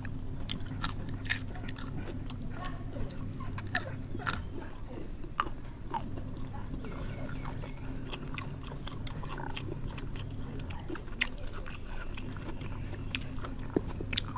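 Close-up eating sounds: crunchy bites and chewing of Thai seafood salad with scattered short clicks, over a steady low hum.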